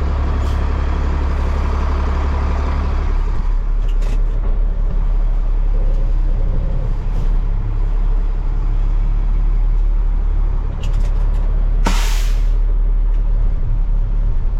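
Diesel engine of a 2007 International 7500 truck running steadily, its note dropping about three seconds in, with a short, sharp air-brake hiss near the end.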